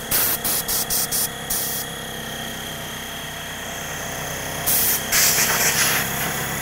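Werther WallAir tankless wall-mount air compressor running with a steady hum while air hisses out of its blow gun: about half a dozen quick blasts in the first two seconds, then a longer blast of nearly two seconds near the end.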